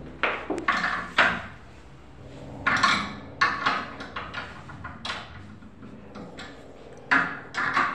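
Irregular clatter and scraping of hard objects being handled, in about six short separate bursts.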